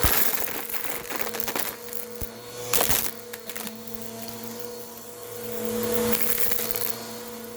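Bissell vacuum cleaner running up close at its brushroll: a steady motor hum with crackling and clicking over it, loudest right at the start and again about three seconds in, and a swell of rushing air around six seconds.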